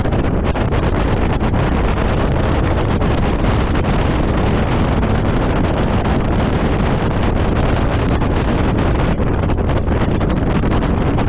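Loud, steady wind buffeting the microphone.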